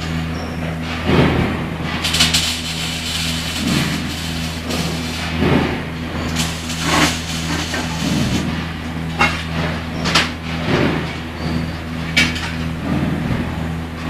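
Factory floor noise: a steady machinery hum, with irregular knocks, clatters and short noisy bursts scattered throughout.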